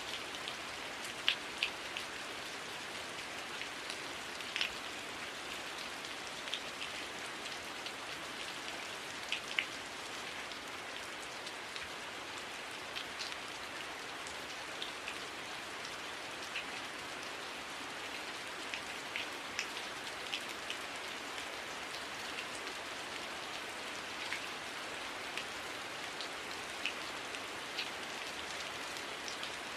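Steady heavy rain, an even hiss with scattered sharp, close drip ticks throughout.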